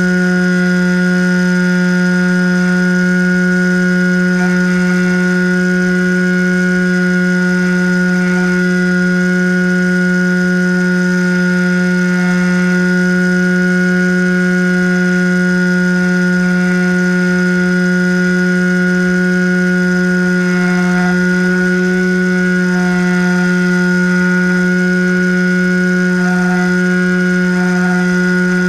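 Motor and propeller of a radio-controlled FPV model plane, heard from the onboard camera, holding a steady drone at constant cruise throttle.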